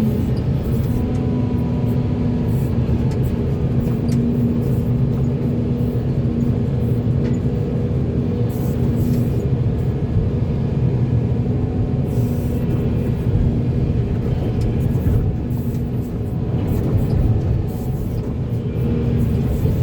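Volvo EC480D excavator's diesel engine running steadily, a continuous low drone with a few steady tones that come and go.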